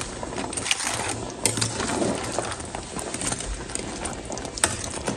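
A spatula stirring fried pakoras through thick karhi in a stainless steel saucepan: a steady wet stirring and scraping, with a couple of sharp clicks of the spatula against the pot.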